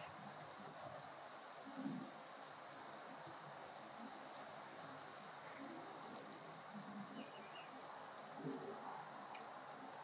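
Quiet outdoor ambience with faint, very short high-pitched chirps scattered every second or so, from small birds or insects rather than the crows.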